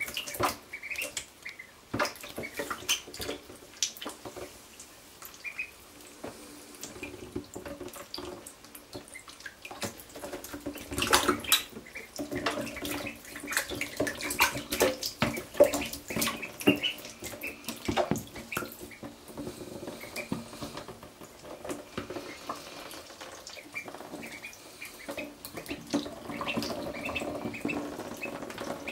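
Call ducklings splashing and dabbling in a shallow tray of water: irregular small splashes and drips, with the loudest bursts of splashing a little before the middle. Short high peeps come now and then.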